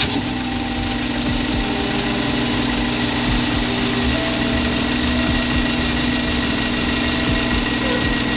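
Mini excavator's diesel engine running at steady revs, a constant hum with a faint high whine above it.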